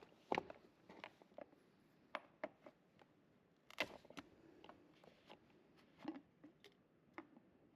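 Faint, irregular clicks, taps and light scrapes of hands and small tools working on a chainsaw, the sharpest click about a third of a second in and another just under four seconds in.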